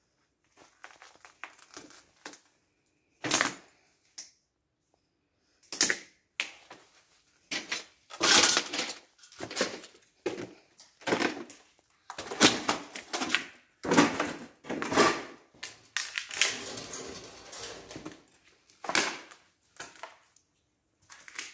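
Footsteps crunching and cracking over broken tile, plaster and wood debris on a floor, in irregular steps about a second apart, with a longer stretch of crunching near the end.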